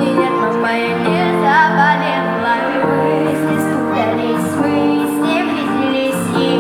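A pop song playing: sustained chords with a female voice carrying a wavering melody over them.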